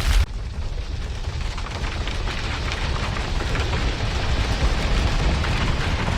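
Steady rushing noise of moving water, heavy in the deep rumble, swelling slightly; it starts abruptly just after the beginning.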